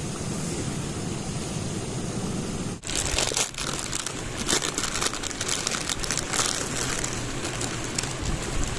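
Steady rushing of a mountain stream. After a cut about three seconds in, a dense, irregular crackling and sizzling of food cooking over a campfire runs over it.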